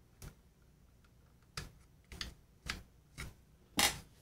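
Wooden chopstick tapping and prodding at the wiring and spade terminals inside a tube amp's chassis, about six sharp clicks roughly half a second to a second apart, the last one the loudest. It is a hunt for an intermittent connection that keeps the amp from coming on.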